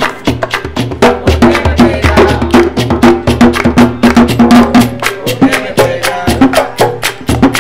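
Live bullerengue music: hand-played tambor drums under a quick, steady run of sharp wooden clacks and claps, with women's voices singing over them.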